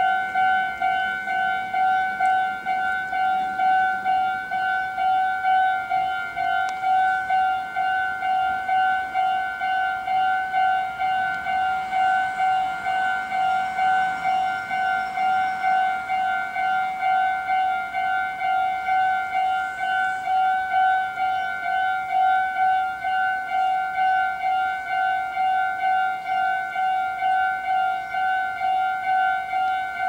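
Japanese railway level-crossing warning bell: an electronic ding repeating in an even, steady rhythm, the signal that the crossing is closed for an approaching train.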